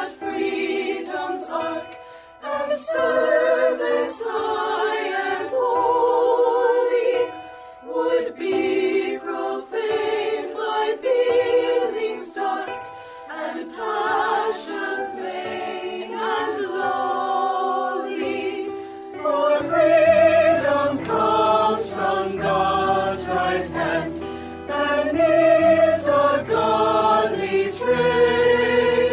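Student choir singing in held chords of several voices. About two-thirds of the way through, low sustained bass notes come in underneath.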